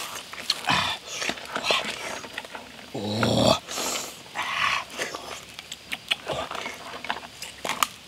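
Boiled mud crab shells cracking and crunching as they are pulled apart by hand and chewed, in a run of sharp clicks and snaps. About three seconds in there is a short low grunt from the eater.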